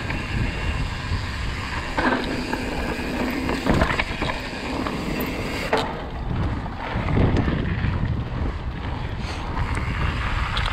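Wind rushing over the microphone with rolling road noise from a moving ride, with a steady hum for about a second and a half starting about two seconds in.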